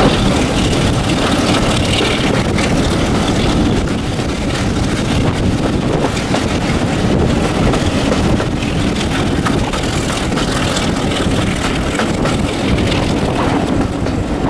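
Diesel locomotive running under power, a loud, steady engine noise with wind on the microphone.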